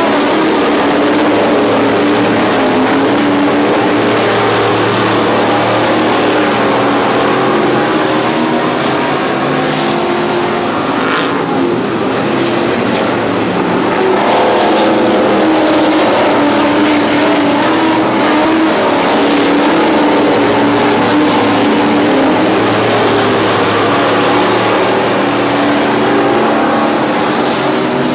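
A field of dirt modified race cars running laps on an oval track: a loud, continuous blend of many engines that eases slightly partway through and swells again.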